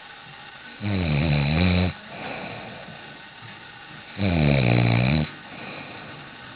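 A sleeping man snoring loudly: two low, rasping snores about a second long each, some three seconds apart, with quieter breathing between them.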